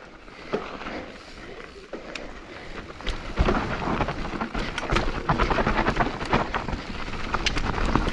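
Mountain bike rolling down a dirt trail: tyre rumble and the bike clattering over bumps, growing louder about three and a half seconds in.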